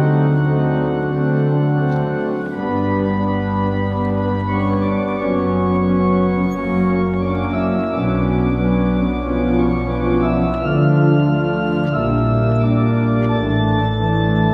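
Organ playing slow, sustained chords over a deep bass line that moves to a new note every few seconds.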